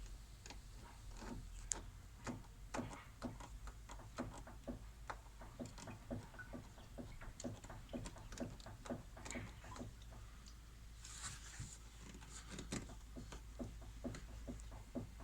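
Lada Vesta suspension knocking: an irregular run of short knocks, several a second, of the kind the uploader traces to worn anti-roll bar (stabilizer) links.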